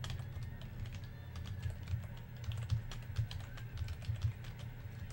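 Typing on a computer keyboard: quick irregular key clicks, over a steady low hum.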